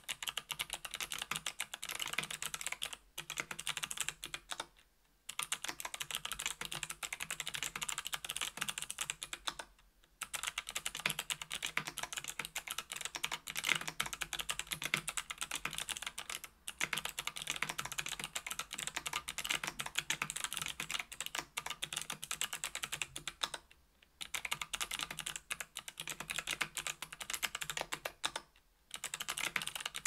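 Typing on a KBDfans Tofu 65% aluminium keyboard with an aluminium plate, stock NovelKeys x Kailh BOX Heavy Pale Blue clicky switches (60g/80g) and GMK Triumph Adler keycaps: fast, continuous keystroke clicks with brief pauses every few seconds.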